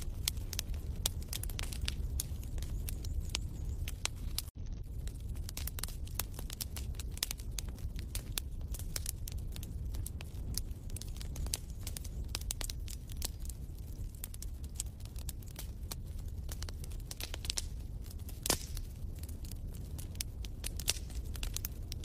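Log fire crackling in a fireplace: many irregular sharp pops and snaps over a steady low rumble. The sound drops out for an instant about four and a half seconds in.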